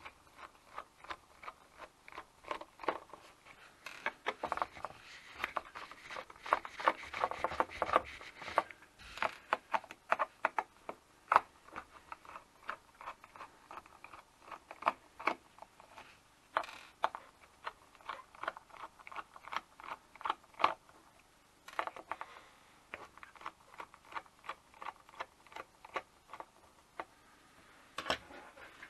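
T8 Torx precision screwdriver unscrewing the lid screws of a hard drive: a long run of small sharp metal clicks, several a second, with some soft scraping.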